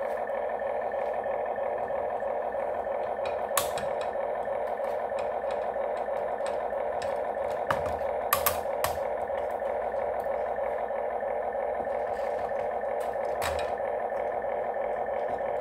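Huina 1592 RC excavator's built-in speaker playing its looped simulated engine sound, a steady drone. Over it come a few sharp plastic clicks and knocks as hands work the rubber track onto the toy.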